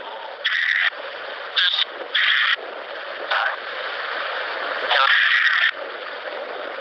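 Steady white-noise hiss from a ghost-hunting EVP session, broken by several short, louder bursts of noise.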